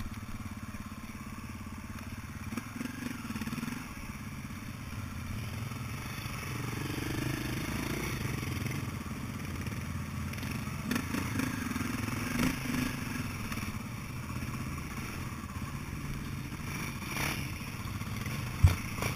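Off-road motorcycle engines running at low revs, revving up briefly three times, with a sharp knock near the end.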